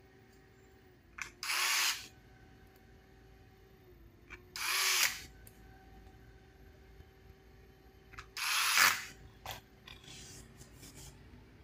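Cordless electric screwdriver run in three short bursts a few seconds apart, driving screws into an RC truck's plastic chassis. A few light plastic clicks from handling parts near the end.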